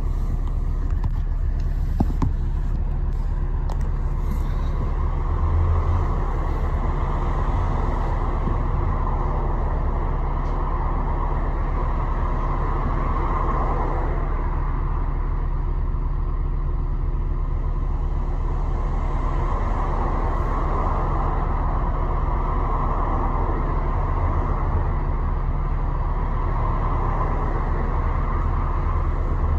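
Bus engine idling steadily, heard from inside the bus, with a constant low hum.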